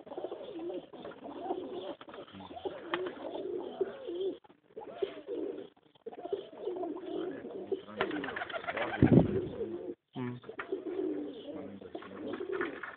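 A loft of domestic pigeons cooing together, many overlapping wavering coos. About eight seconds in there is a brief, louder burst of noise.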